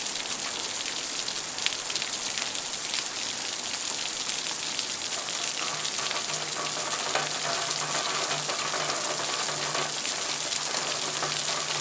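Natural rain falling steadily: a dense, even hiss made of countless small drop ticks. About halfway through, a faint low steady hum joins in underneath.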